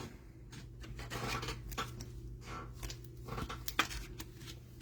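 Trading cards and their packaging being handled: soft rustling and shuffling with a few light clicks, over a steady low hum.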